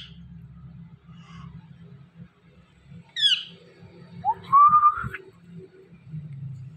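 Indian ringneck parakeet calls. About three seconds in there is a short, sharp falling call, and a second later a louder whistle that rises, holds steady and turns up at the end.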